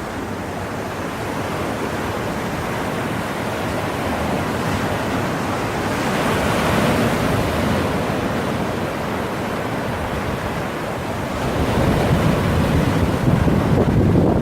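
Ocean surf washing onto a beach: a continuous rush of breaking waves that swells about six seconds in and again near the end.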